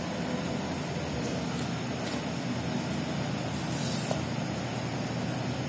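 Steady low background rumble. About four seconds in comes a brief scratch of a compass's pencil lead on paper.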